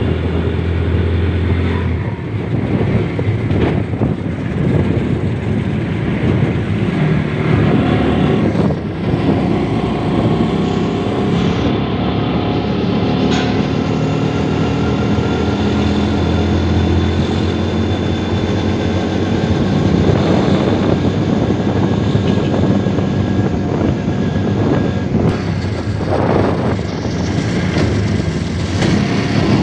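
Motorcycle engine running while riding along a road, its note rising and falling as the speed changes, with other traffic passing.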